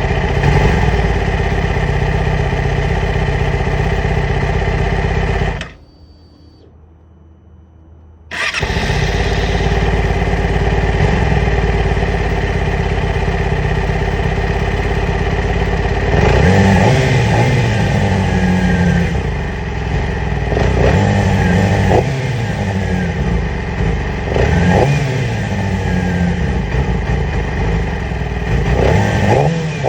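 2008 Yamaha R6's 599 cc inline-four engine idling roughly, with the sound dropping away for about three seconds near the start before it runs again. From about halfway through come several throttle blips that rise and fall in pitch. The rough idle is one the owner means to cure with new ignition coils and spark plugs.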